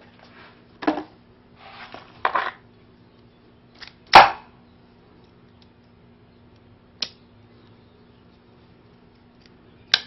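Gerber Grappler multitool being handled: light clicks and rustles, then one loud metallic snap about four seconds in as the pliers head comes out and locks into place. Two smaller sharp clicks follow, near seven seconds and at the end.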